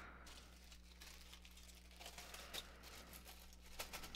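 Faint handling noises of parts being picked up and moved on a workbench: a few small clicks and light crinkling, over a steady low hum.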